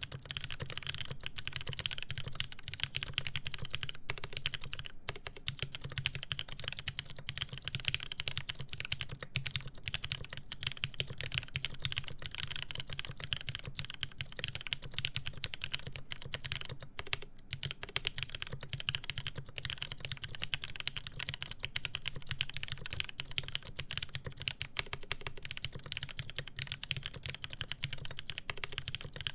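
Fast, continuous typing on a mechanical keyboard with lubed Cherry MX Speed Silver linear switches in a polycarbonate plate, a dense run of keystroke clacks with a brief pause midway.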